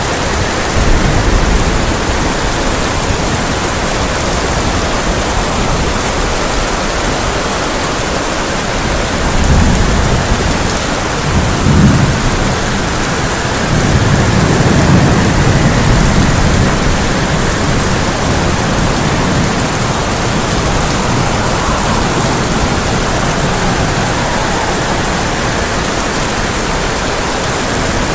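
Heavy rain drumming steadily on a tin roof, with low rolls of thunder through the middle, the sharpest about twelve seconds in and a longer rumble just after.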